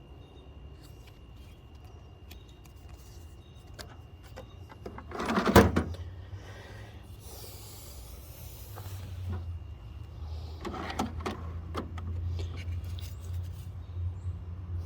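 Small metal tool bits being handled and sorted in a box: scattered light clicks and one louder clatter about five seconds in, over a low steady hum that grows stronger in the second half.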